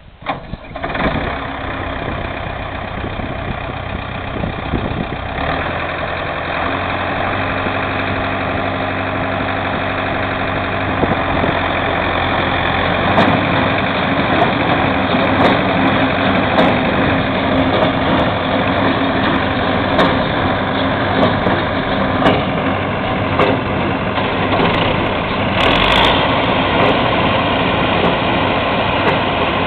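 Tractor engine running a hay baler. It starts abruptly and keeps running steadily, grows louder about midway, and sharp knocks come through now and then.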